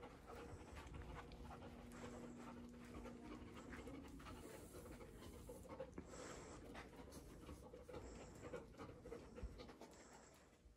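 A dog's faint breathing and panting in short bursts every couple of seconds while it searches a room nose-down.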